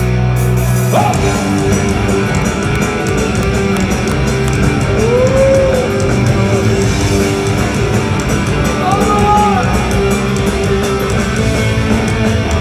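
Live punk rock band playing loud with distorted electric guitars and drums. A held chord gives way to the full band coming in about a second in.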